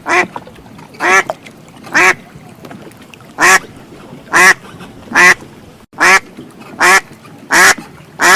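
Duck quacking, about ten single loud quacks in a steady series, one every second or so.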